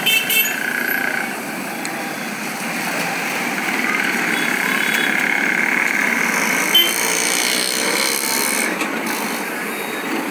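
Steady outdoor street noise with engine sound from passing traffic. A few clicks at the start and one sharp click near the middle.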